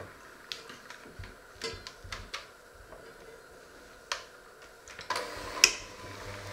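Clicks and knocks of a hand mixer being handled over a stainless steel bowl, then about five seconds in the electric hand mixer's motor starts and runs steadily, with one sharp click soon after.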